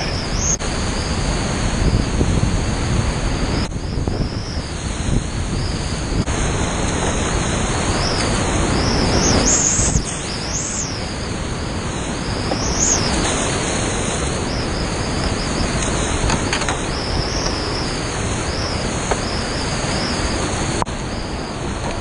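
Loud, steady rush of whitewater river rapids around a kayak, with wind and water noise on the camera microphone. The rush drops suddenly to a lower level about ten seconds in.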